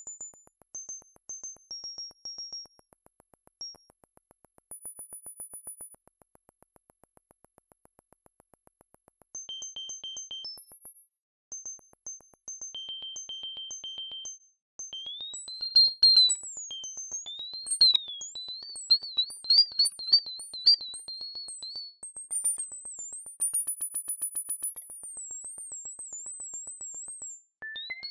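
Electronic music from a GarageBand Electric Marimba software-instrument track: sparse, very high-pitched beeping notes, then about halfway through, warbling and gliding high tones with a few sharp louder notes and a rapid pulsing.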